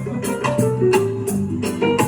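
Music played through a sound system's speakers: a steady beat with a bass line and a pitched melody line over it.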